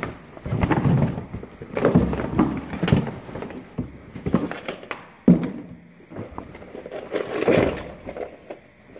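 Rummaging through a cardboard box: clear plastic bags crinkling, cardboard flaps rustling and objects knocking against each other, with one sharp knock about five seconds in.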